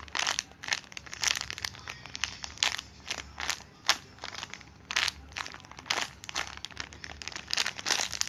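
Plastic packaging crinkling in irregular crackles as a bagged foam squishy toy is handled.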